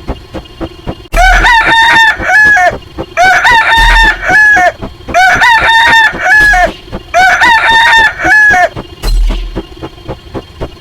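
A rooster crowing, four crows in a row, each about a second and a half long. Under them runs a fast, even ticking, with a low thump every two to three seconds.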